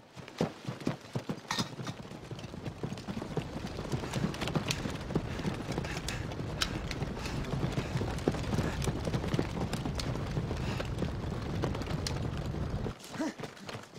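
Many soldiers running together across a field: a dense patter of footfalls with their equipment rattling and knocking. It thins out near the end.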